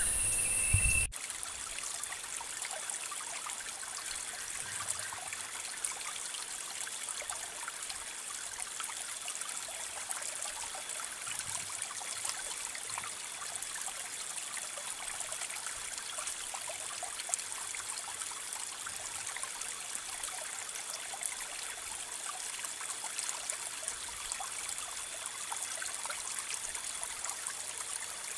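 Steady outdoor ambience: an even high hiss with faint steady high tones running through it. About a second in, a louder shrill buzz cuts off abruptly.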